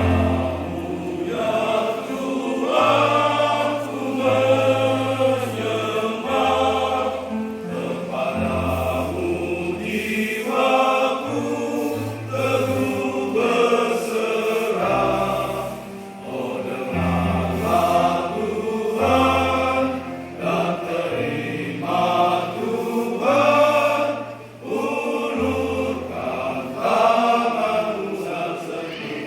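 Church choir singing in parts over a low, held bass accompaniment that changes note every second or two.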